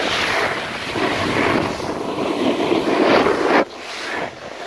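Snowboard sliding and scraping over packed snow, with wind rushing across the microphone. The scraping cuts off sharply about three and a half seconds in.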